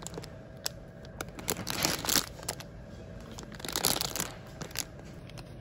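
Plastic packet of mini stroopwafels crinkling as it is handled, with two louder rustles about two and four seconds in among scattered small crackles.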